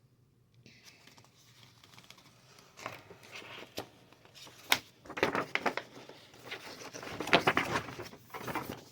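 Large folded paper wargame maps being unfolded and handled, crinkling and rustling in irregular bursts that grow busier and louder in the second half.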